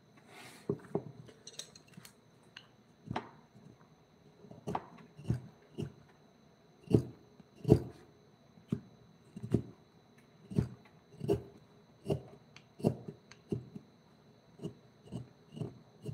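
A wooden mallet repeatedly striking a carving chisel into wood: dull knocks, roughly one to two a second, with uneven spacing and force, starting about half a second in.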